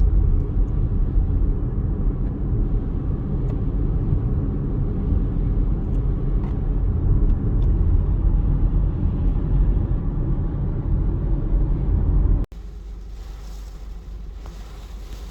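Hurricane wind gusts buffeting the microphone: a loud, heavy low rumble. About twelve seconds in it cuts abruptly to a quieter, steady rush of wind.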